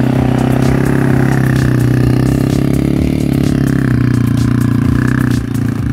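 Four-wheeler (ATV) engine running steadily close by, with a light clatter; the pitch shifts slightly about five seconds in.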